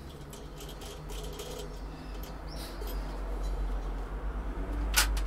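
Handling noise from a cymbal being worked off its stand: a low rumble with faint small clicks and rattles, and one sharp metallic knock near the end.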